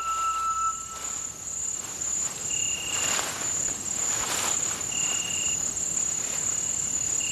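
Night insects calling: a steady, high, pulsing trill, with a second, lower call about half a second long repeating roughly every two and a half seconds. Soft rustling comes in the middle.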